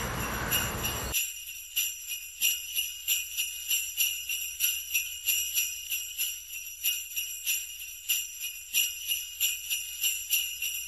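Sleigh bells jingling, shaken in a steady rhythm of about three shakes a second. A wider background hiss underneath cuts off suddenly about a second in, leaving the bells alone.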